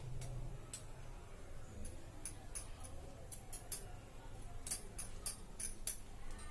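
Light, sharp clicks at an uneven pace, about a dozen in all in two clusters, from fingers and fingernails tapping a stone countertop while pinching and crimping the edge of a folded dough pastry.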